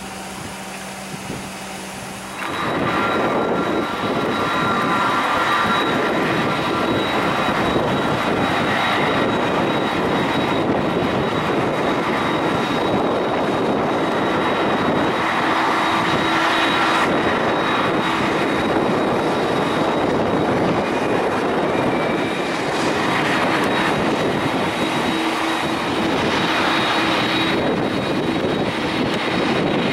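A Cessna Grand Caravan turboprop running briefly. About two and a half seconds in, a sudden change to a jetBlue Airbus A320's twin jet engines on landing approach and then rolling along the runway: a loud, steady rush with a high whine over it.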